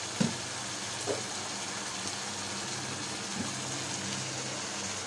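Steady hiss of chicken curry sizzling in a nonstick pan on a gas stove, with a low steady hum underneath and a few faint knocks.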